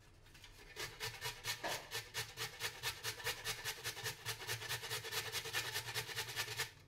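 A carrot being grated on a stainless steel box grater: quick, even back-and-forth strokes, about six a second, starting about a second in and stopping just before the end.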